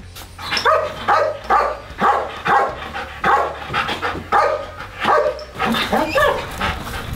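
A military patrol dog barking repeatedly and loudly, about two barks a second.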